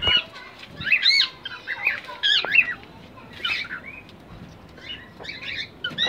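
Cockatiels calling in an aviary: short chirps that rise and fall in pitch, about one a second, over some wing flapping.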